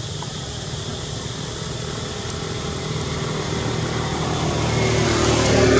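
Motor vehicle engine and road noise, steady at first and growing louder over the last two or three seconds as the vehicle approaches.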